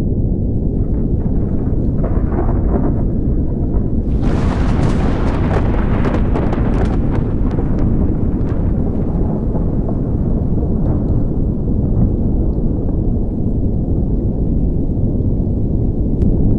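Dramatic trailer sound effect: a loud, continuous deep rumble, with a crash-like surge of noise about four seconds in that dies away over the next few seconds.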